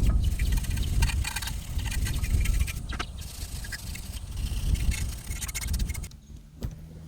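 Scraping, rubbing and a few sharp knocks from hand work on a removed engine oil pan and its cracked old gasket, over a low rumble that is strongest in the first seconds.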